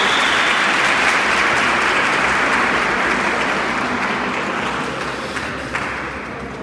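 Audience applauding, the clapping thinning out over the last two seconds or so.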